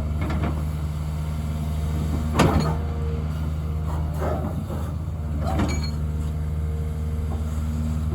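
Hyundai HX300 excavator's diesel engine running steadily while digging, with a hydraulic whine coming and going. Five or so sharp clanks and scrapes break over it, the loudest about two and a half seconds in.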